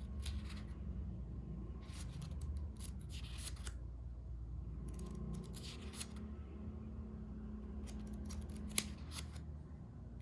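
Packaging being handled during an unboxing: rustling and crinkling in four short spells, with a sharp click near the end, over a low steady hum.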